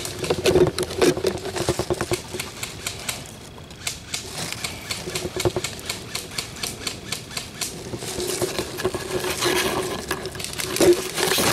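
Airsoft guns firing in rapid bursts, a rattling stream of clicks, thickest in the first couple of seconds and again near the end, sparser in between.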